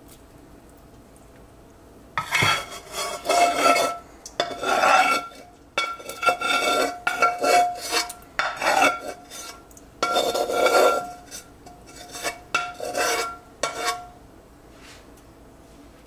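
A metal spoon scraping and clinking against metal cookware in a run of short strokes, scooping food out for layering, each stroke with a faint ring. It starts about two seconds in and stops a couple of seconds before the end.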